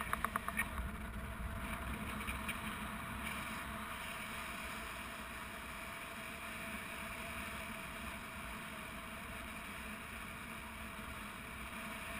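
Steady rush of airflow on a GoPro camera's microphone during a paraglider flight, with a brief rapid flutter in the first second.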